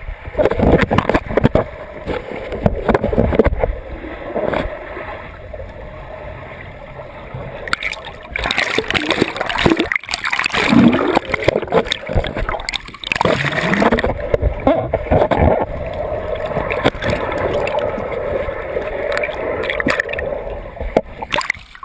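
Turbulent water churning and splashing.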